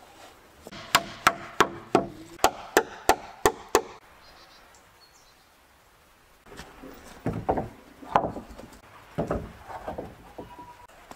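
Hammer driving a nail into a wooden roof board: nine quick, sharp strikes at about three a second. A few seconds later come several irregular, duller wooden knocks and thumps as boards are handled.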